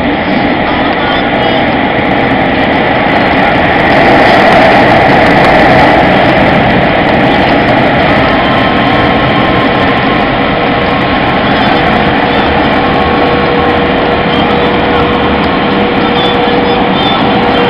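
Automatic car wash's air-drying blowers running, a loud steady rush of air with a steady hum, heard from inside the car; a little louder about four seconds in.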